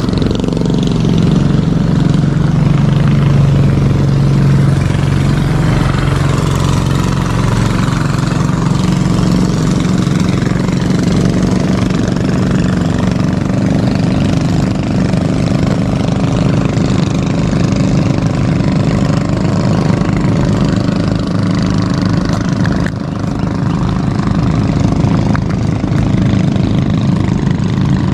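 A small engine running steadily, its pitch settling a little lower just after the start.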